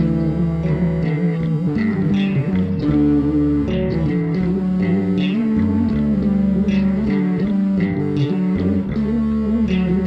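Instrumental music: guitar over a bass line, with no singing.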